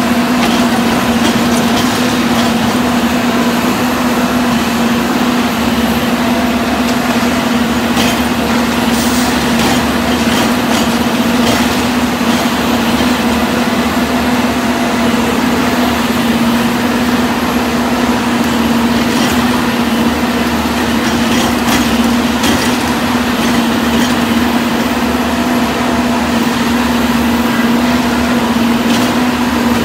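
Harsco TR10 tie-replacement machine running steadily, with its engine and hydraulics making a constant hum. A few light sharp clicks come through now and then.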